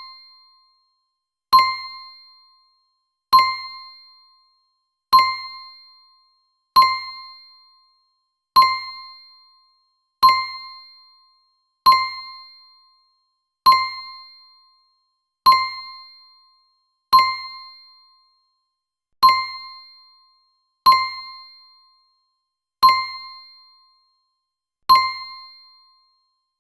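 Quiz 'correct answer' ding: a bright chime tone that strikes sharply and rings out, fading over about a second. It repeats identically about every 1.8 seconds, fourteen times.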